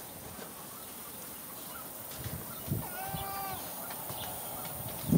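One short animal call with a pitch that rises then falls, about three seconds in, over a steady low outdoor background.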